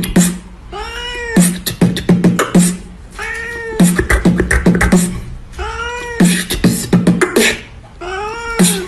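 A cat meows four times, about every two and a half seconds, each meow rising and falling in pitch. Each meow is answered by a quick rhythmic run of beatboxed clicks and thumps, so the meows fall on the beat.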